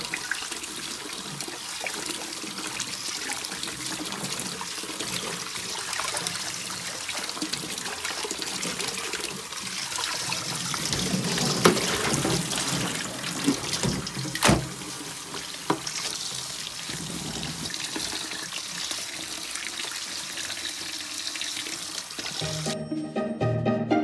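Tap water running into a stainless steel bowl in a sink as a bleach-dyed T-shirt is rinsed by hand, with a few sharp knocks around the middle. Music starts near the end.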